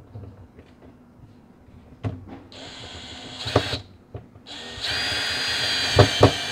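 A DeWalt cordless drill drives a mounting screw into the wooden cabinet floor in two runs of steady motor whine, a short burst about two and a half seconds in and a longer run from about four and a half seconds. A few sharp knocks come as the screw bites and seats.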